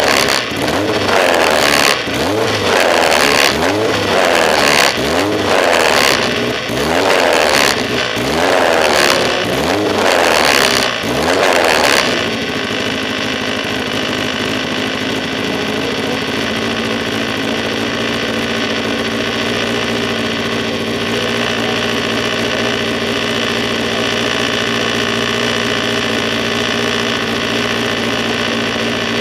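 Single-seater race car engine (a Lola with a Skoda engine) blipped hard over and over while the car waits at the start, rising and falling in pitch about once a second. About twelve seconds in, the revving stops and it settles into a steady idle.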